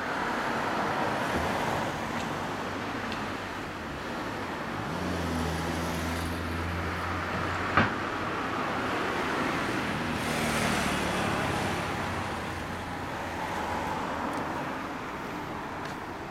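Road traffic: cars passing in slow swells of tyre and engine noise. For a few seconds mid-way a low, steady engine note joins it and stops at a single sharp click.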